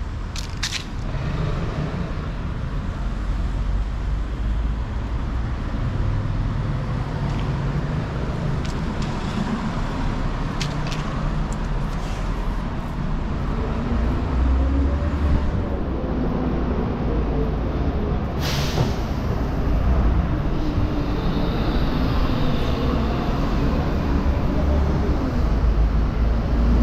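City street traffic: motor vehicles running and passing close by, with an engine's pitch rising and falling in the second half and a short sharp hiss about two-thirds of the way through.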